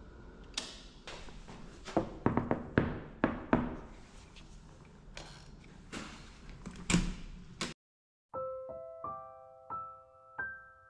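A series of irregular knocks and clatters over a steady background hiss, cut off suddenly; after a brief gap, slow, gentle piano music of single sustained notes begins.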